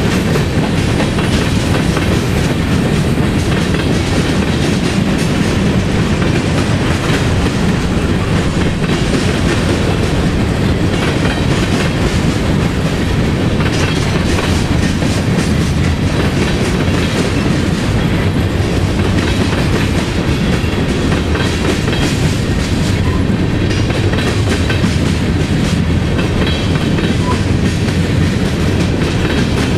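Freight cars of a BNSF manifest train, covered hoppers and then gondolas, rolling steadily past. Steel wheels run on the rails with a constant low rumble, and repeated clicks come from the wheels.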